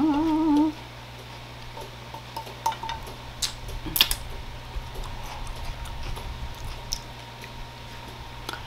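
Close-up eating sounds: chewing with scattered sharp clicks and taps, the loudest about four seconds in, over a steady low hum.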